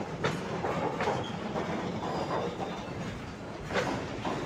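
Enclosed car-carrier freight wagons rolling past close by: a steady rumble of wheels on rail, with a few sharp clacks as the wheels cross rail joints.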